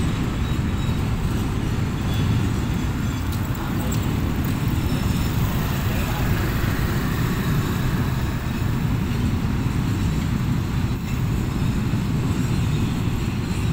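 Container freight train rolling past: a steady low rumble of wagons on the rails.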